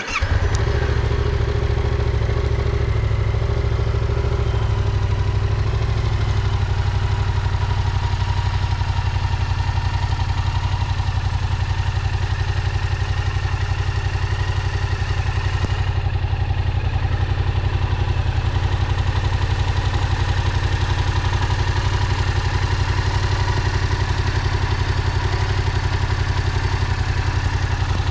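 Yamaha MT-07's 689 cc parallel-twin engine started with the starter button, catching almost at once, then idling steadily.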